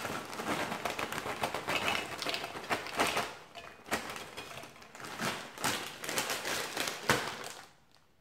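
A Fritos corn chip bag crinkling and rustling as corn chips are poured out and land on a ceramic plate, a busy run of crackles and clicks that dies away near the end.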